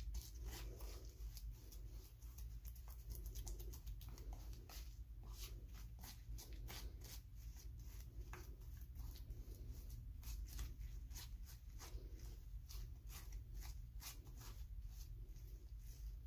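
Metal palette knife stirring and spreading a thick mound of acrylic paint, making quick irregular wet, sticky clicks.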